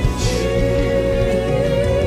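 Live gospel worship music from a band, with one long held note that wavers slowly, over steady bass.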